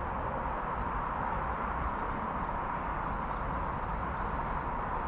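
Steady outdoor background noise: an even hiss with no distinct events, with faint light ticks in the second half.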